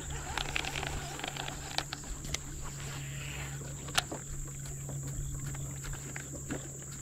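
Insects buzzing steadily at a high pitch over a low steady hum, with scattered light clicks and taps, the sharpest about four seconds in.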